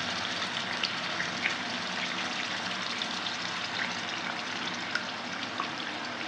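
Marinated mutton liver pieces sizzling in hot oil in a frying pan, a steady hiss with scattered small pops and crackles as more pieces are laid in.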